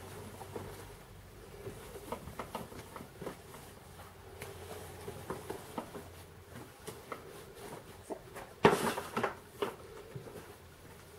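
Scattered light clicks and knocks of goods being handled, with one louder clatter or rustle a little under nine seconds in, over a steady low hum of the shop.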